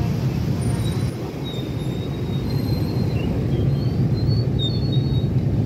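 Many small motorcycle engines idling and revving together in a steady low drone, with a few faint short high tones over it.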